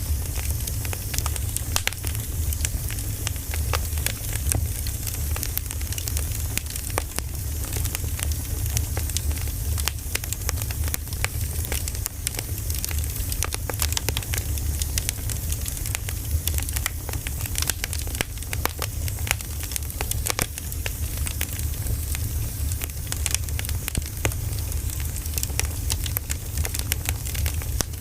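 Bonfire crackling: a steady run of sharp pops and snaps over a low rumble.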